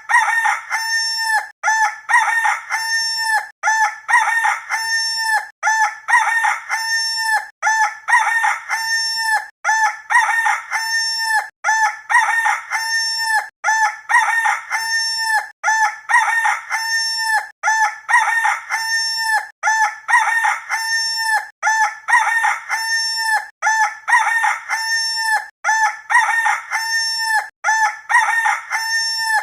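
Rooster crowing, the same crow repeated over and over about every two seconds, each a held cock-a-doodle-doo that drops at the end.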